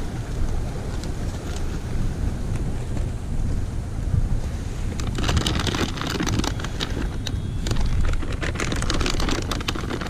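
Plastic shopping bag rustling and crinkling as hands rummage through it, starting about five seconds in, over a steady low rumble.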